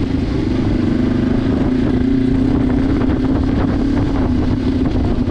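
Kawasaki KLE500 parallel-twin engine running at steady revs as the bike is ridden slowly along a slippery muddy trail.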